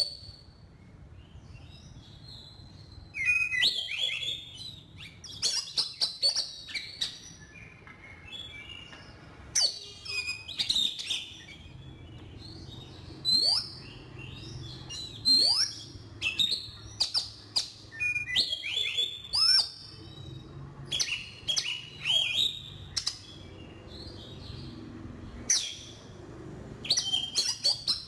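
Oriental magpie-robin singing: short phrases of varied rising and falling whistles and quick sharp notes, repeated with brief pauses between them.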